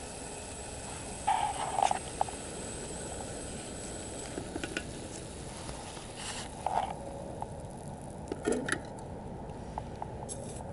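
Steady background hiss with scattered light knocks and clicks of things being handled, the loudest a little over a second in and again around two-thirds through.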